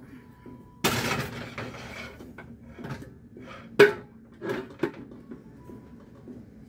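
Pots and pans handled on a stovetop: a sudden clatter about a second in that dies away over a second or so, then a few sharp knocks.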